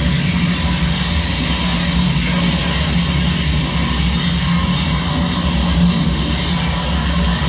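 Live noise music from a tabletop rig of electronic effects pedals and a mixer: a loud, steady wall of noise, a low drone under an even hiss, changing little.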